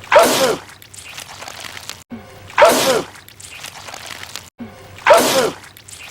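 A man's loud, wet sneeze, the same sneeze repeated three times about two and a half seconds apart, each with a short falling vocal sound.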